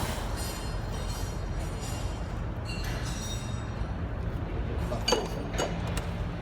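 Metal ringing and clinking a few times, as of steel tools or parts struck against one another, over a steady low machine hum. The sharpest strikes come near the end, about half a second apart.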